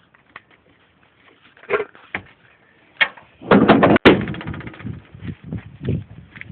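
A few clunks, then about three and a half seconds in the 1994 Chevrolet K1500's 5.7-litre throttle-body-injected V8 cranks and fires, with a sharp click as it catches, and keeps running. This is a start with a new engine coolant temperature sensor fitted, the fix for its hard cold starts and stalling.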